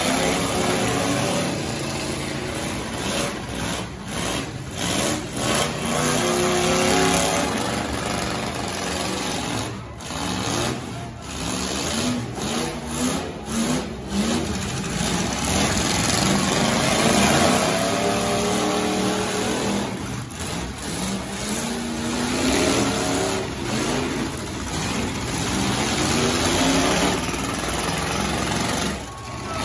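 Engines of demolition derby pickup trucks revving repeatedly, their pitch climbing and falling over and over as they are driven into one another.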